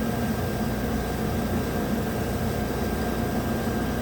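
Volkswagen 1.8 TSI four-cylinder engine running steadily at or just off idle, not running smoothly, with a misfire that the scan data places on cylinder 4 while the oxygen sensor is disconnected.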